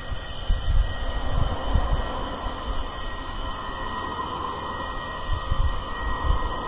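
Crickets chirping in a fast, steady pulsing rhythm, over an uneven low rumble.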